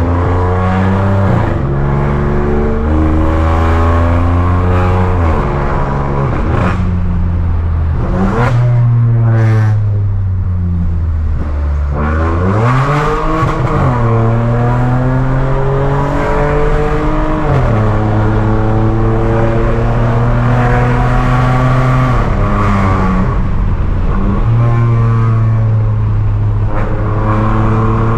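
Volkswagen Virtus 1.0 TSI three-cylinder turbo engine, very loud through a stainless downpipe and a catback with no rear muffler, as the car is driven. The note holds steady in stretches and climbs and falls in pitch several times, with a sharp dip and recovery about twelve seconds in.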